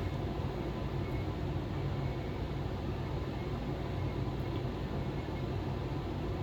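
Steady low hum with an even hiss, like a fan or similar machine running continuously, with a few faint ticks.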